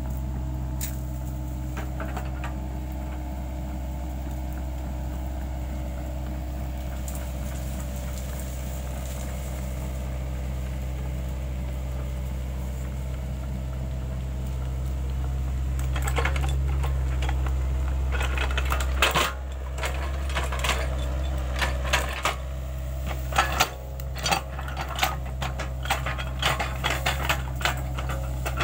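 Sany SY55C mini excavator's diesel engine running steadily while it scrapes soil to smooth a dirt path. From a little past halfway, repeated sharp clanks and cracks join in as the bucket works the ground.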